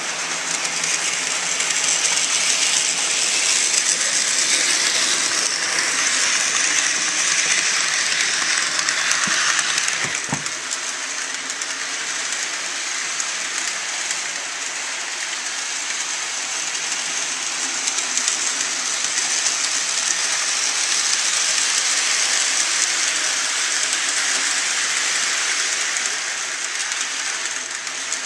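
HO scale model train running on the track: a steady hissing rattle of wheels and motors that swells and eases slowly, with a single click about ten seconds in.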